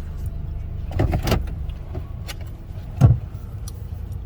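Vehicle engine idling, a steady low rumble heard from inside the cabin, with a few clicks about a second in and a single loud thump about three seconds in.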